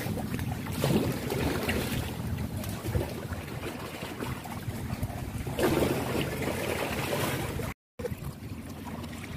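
Wind buffeting the microphone over sea water splashing and washing at the shore. The sound cuts out for a moment near the end, then carries on quieter.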